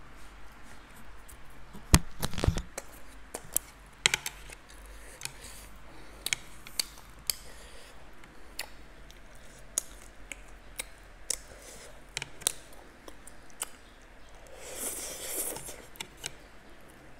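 Close-up eating sounds: wet mouth clicks and chewing on spicy noodles and roti, with chopsticks clicking. There is a sharp click about two seconds in, and a long slurp of noodles near the end.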